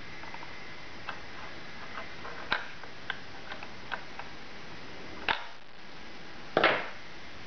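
Scattered light clicks and taps of a laptop RAM module being handled, with a sharper click about two and a half seconds in and another past five seconds, and a louder short scrape near the end, over a steady hiss.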